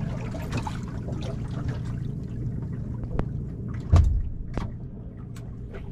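Water lapping and sloshing against the hull of a small fishing boat over a steady low hum, with a few sharp knocks and one louder thump about four seconds in.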